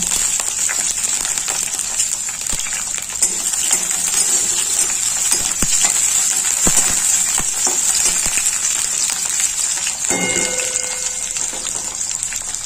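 Onion quarters and green chillies frying in hot mustard oil in a kadai: a steady sizzle with scattered crackles and pops, a metal spatula stirring them. A brief ringing tone sounds about ten seconds in.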